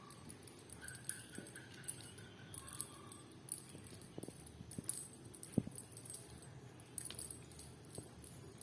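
Kittens at play: light jingling and clicking, like a small bell toy being batted about, with a few soft knocks.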